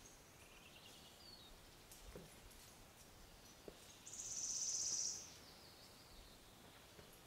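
Quiet forest background with a high, fast, buzzing trill lasting about a second, starting about four seconds in, the loudest sound here; a fainter rising call is heard about a second in.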